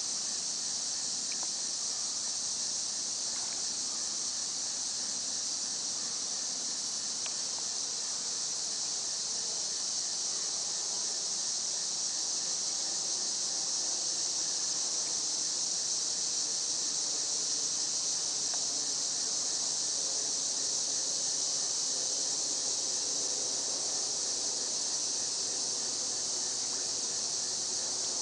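Steady, high-pitched chorus of insects, such as crickets, on a summer evening, with a few faint small splashes as fish rise to take food at the water's surface.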